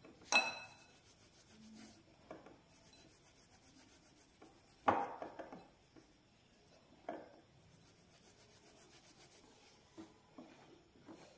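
Hands rubbing gram flour (besan) moistened with ghee and milk between the fingers and palms in a glass bowl, a faint gritty rubbing that works the flour into grains. A few short knocks sound against the glass, the first, about half a second in, ringing briefly.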